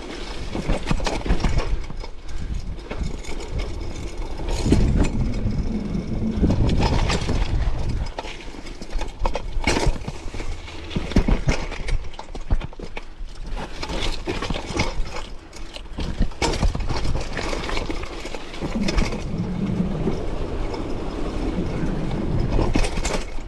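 Mountain bike ridden fast over a rocky trail: tyres rolling on dirt and stone, with frequent knocks and rattles from the bike as it hits rocks and roots.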